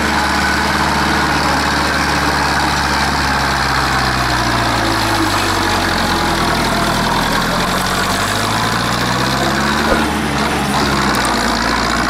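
Zetor tractor's diesel engine running under load, its revs sinking in the middle and climbing again toward the end, with a single knock near the end.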